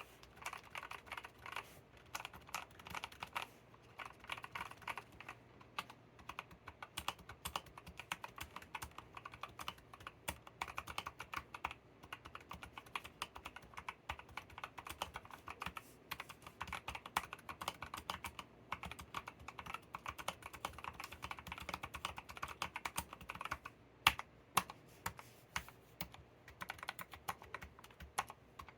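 Continuous typing on a Tester 68 mechanical keyboard fitted with homemade silent tactile switches: Gateron brown stems in Kailh Polia housings dampened with silicone on the top and bottom, with 62 g gold-plated springs. One key strike about 24 seconds in is louder than the rest.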